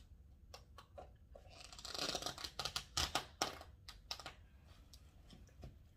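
Paper food wrapper crinkling and rustling for a couple of seconds, starting about two seconds in, with scattered small taps and clicks around it.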